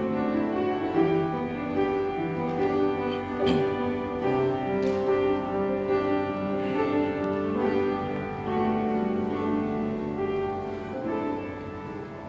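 Slow instrumental introduction played on piano, sustained chords changing every second or so, getting quieter near the end.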